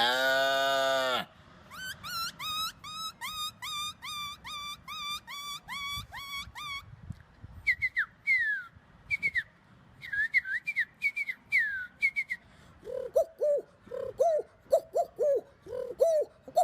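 A man imitating animals with his voice: a cow's moo ends about a second in, followed by a run of whistled bird calls, rising notes about twice a second, then quick falling chirps, and in the last few seconds a repeated low cooing like a pigeon's.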